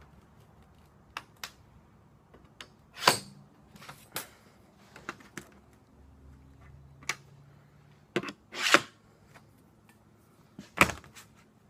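Marking tools being set down, moved and slid on a flat sheet of metal while layout lines are marked: scattered light clicks, with louder knocks and scrapes about three, nine and eleven seconds in.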